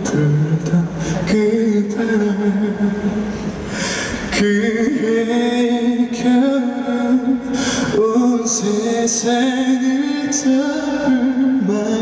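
Solo male voice singing a cappella into a handheld microphone, amplified at a live concert, in long held notes that waver slightly in pitch.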